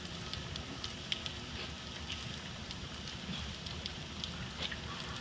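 Artificial rain from a film-set rain rig, water pumped through overhead tubes and falling steadily, a constant hiss with scattered light patter of drops.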